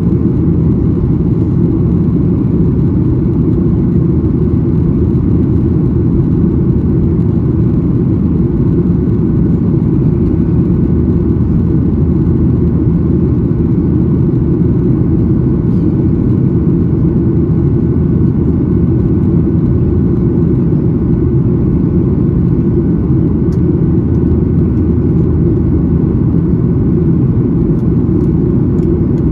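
Steady cabin roar of a Boeing 737-800 in flight, from its CFM56-7B turbofan engines and the airflow over the fuselage, heard inside the passenger cabin during the climb after takeoff. A deep, even rumble with no change in pitch or level.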